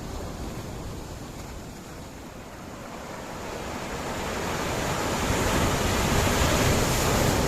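Ocean surf: a wave rolls in and crashes onto rocks, the rushing wash swelling louder over the last few seconds, with wind buffeting the microphone.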